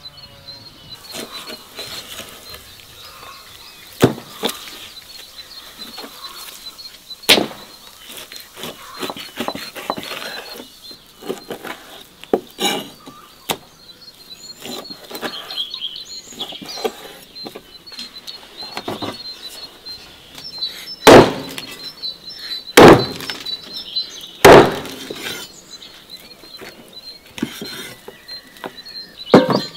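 Knife chopping raw lamb on a wooden cutting board: irregular sharp knocks, with three heavy chops, the loudest, about two-thirds of the way through. Birds chirp faintly behind.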